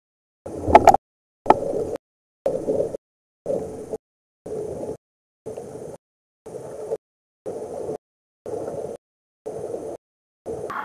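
Sea water and wind noise on a kayak-mounted camera, cutting in and out about once a second in half-second bursts with dead silence between. There are a couple of sharp splashes about a second in.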